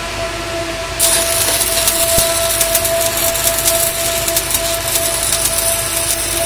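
Stick (shielded metal arc) welding: the arc strikes about a second in and then crackles and spits steadily as the electrode burns onto the steel. A steady high whine runs underneath throughout.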